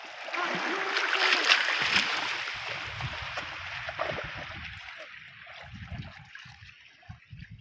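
Shallow seawater splashing and trickling around rocks as feet wade through it, loudest in the first couple of seconds and fading after. Low, irregular rumbles sit underneath from about two seconds in.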